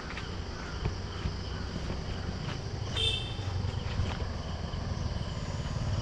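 4x4 vehicle engine running slowly with a steady low rumble, getting louder near the end. A short high-pitched tone sounds once about three seconds in.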